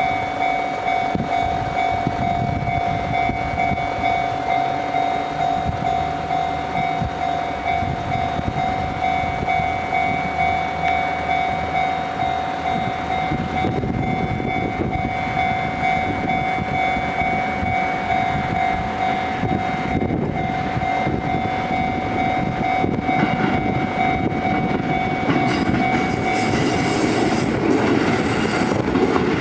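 Japanese level-crossing warning bell ringing in an even repeated pulse while a KiHa 11 diesel railcar approaches. Its engine rumble grows from about halfway through, and in the last few seconds the wheels clatter over the rail joints as it passes. The bell stops near the end.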